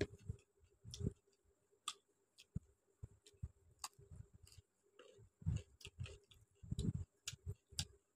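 Close-miked eating sounds: chewing a mouthful of rice and chicken curry, with irregular wet mouth clicks and soft thuds, and fingers mixing rice on a steel plate.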